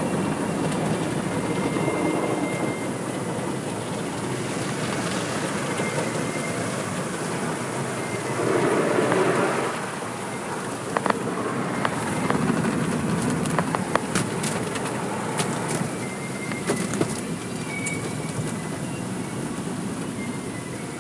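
Automatic car wash heard from inside the car: water spraying and cloth brushes swishing over the body and windows, a steady rush that swells briefly about nine seconds in, with scattered sharp taps a little later.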